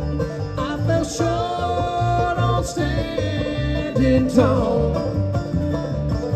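Live bluegrass band playing: banjo, mandolin, acoustic guitar and electric bass over a steady rhythm.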